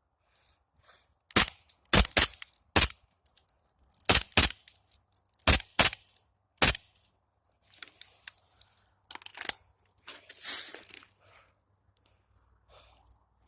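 Airsoft guns firing single shots in a firefight: about nine sharp cracks spread over some five seconds, several in quick pairs. After them come softer scuffing and rustling noises, with one longer hiss-like burst.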